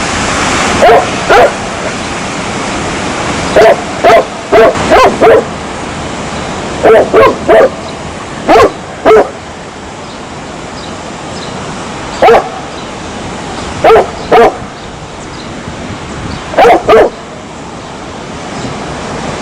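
A dog barking: short sharp barks in irregular groups of one to three, about seventeen in all, with pauses of a second or more between groups. A steady hiss of background noise runs underneath.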